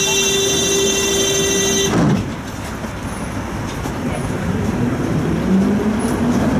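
A tram's door-closing warning buzzer sounds steadily and cuts off about two seconds in, with a knock as the doors shut. The tram then starts off, its traction motor whine rising in pitch as it gathers speed.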